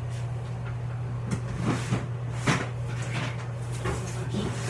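Close handling noises: a series of short, irregularly spaced rustles and scrapes over a steady low electrical hum.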